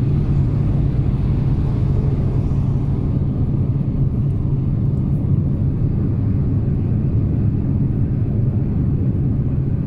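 Steady low rumble of a vehicle on the move: a constant engine and road drone with no change in level.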